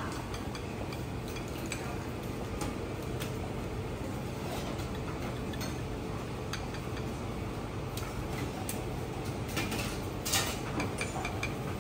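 Light clinks and taps of metal spoons against small copper saucepans and plates over a steady background hum, with a louder clatter near the end.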